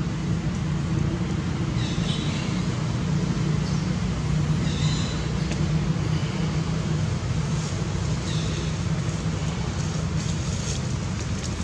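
Steady low hum of a motor vehicle engine running, with a short high chirp recurring every two to four seconds.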